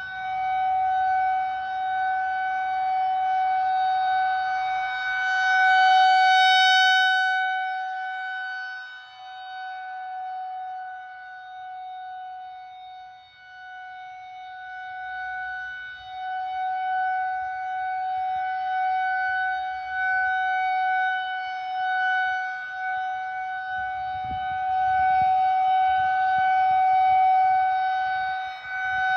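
Federal Signal 2001-130 electromechanical outdoor warning siren sounding a steady Alert tone at a constant pitch. Its loudness swells and fades slowly as the rotating siren head sweeps toward and away from the listener.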